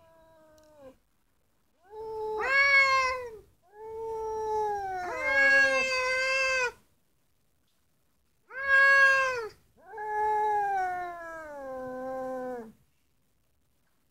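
Two domestic cats yowling at each other in a standoff before a fight: long, drawn-out wavering calls that dip in pitch at the ends. One faint call comes first, then four loud yowls, with the two cats' voices overlapping in the second.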